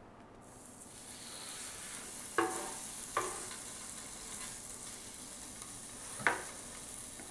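Cubes of Japanese A5 Wagyu steak sizzling on a hot diamond-coated electric grill pan as they go down. The sizzle builds over the first second and then holds steady, with a few short clicks.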